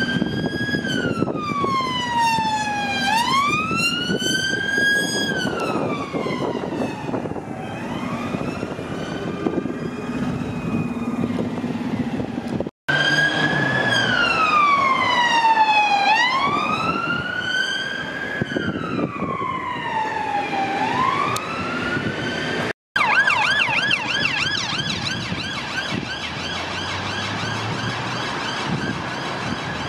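UK emergency vehicle sirens. A slow wail sweeps up and down, each sweep taking two to three seconds, in two stretches that each break off abruptly. Near the end it changes to a fast yelp, with traffic noise underneath throughout.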